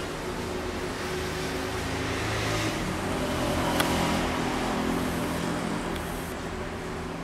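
Steady background traffic noise, a low rumble and hiss that swells and fades in the middle as a vehicle passes. A single sharp click near the middle.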